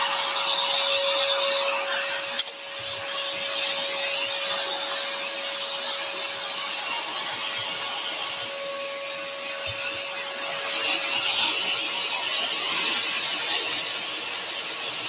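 Axminster Trade AT406SS scroll saw running, its reciprocating blade cutting through a thin wooden panel with a steady buzz and a constant hum. The level dips briefly about two and a half seconds in.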